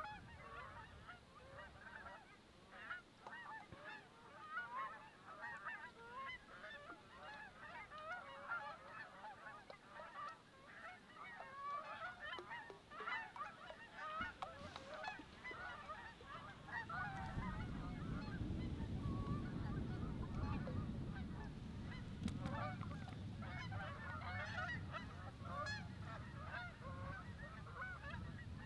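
Large flocks of Canada geese honking overhead in a constant, overlapping clamour of many calls. About halfway through, a low rumble comes in for several seconds.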